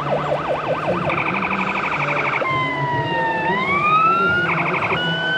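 Electronic siren from a radio-controlled model fire truck's sound module, cycling through tones: a fast yelp at the start, a pulsing buzzy tone about a second in, then a slow wail that falls and rises again, another short pulsing burst near the end, and a steady high tone.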